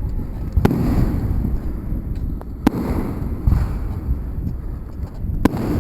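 Fireworks going off: several sharp bangs, one about half a second in, two close together around two and a half seconds, and one near the end, over a continuous low rumble of further bursts and their echoes.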